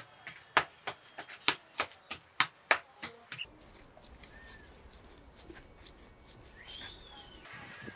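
Hand slapping wet clay onto an upturned pot used as a mould, sharp slaps about three a second. About three and a half seconds in, it gives way to lighter, crisper ticks of fingers working clay on the rim of a pot being built up, with two short chirps.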